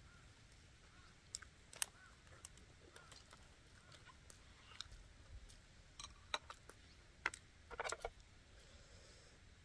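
Faint table and eating sounds: scattered light clicks of chopsticks against bowls, with chewing and food handling, and a short cluster of clicks near the end.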